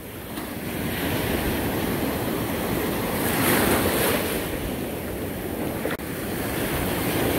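Ocean surf breaking and washing up the beach at the water's edge, swelling to its loudest about three and a half seconds in, with wind buffeting the microphone.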